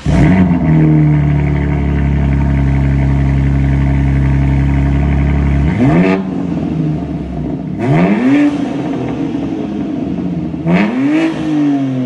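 BMW M4 Competition's S58 twin-turbo inline-six revving through a Valvetronic Designs midpipe with the stock rear exhaust section, exhaust valves open. It holds a steady high rev for about six seconds, drops back, then gives two quick blips that rise and fall.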